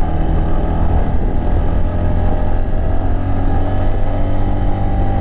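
Motorcycle engine running at a steady speed while riding, over a strong low rumble.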